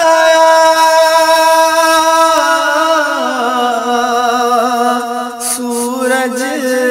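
A male voice singing a naat in long drawn-out melismatic notes, holding a steady pitch and then stepping down to a lower note about three seconds in.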